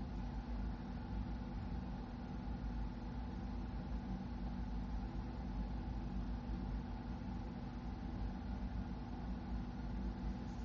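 Steady low background hum with a faint hiss, unchanging throughout: room noise or an appliance running, picked up by the microphone in a pause between speech.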